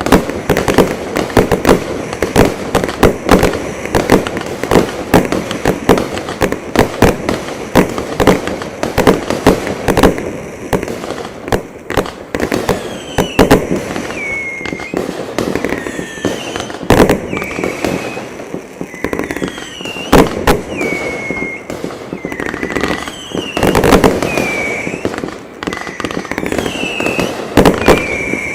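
Consumer 500-gram firework cakes firing a rapid barrage of shots and bangs. About halfway through, the shots start trailing falling whistles, roughly one a second.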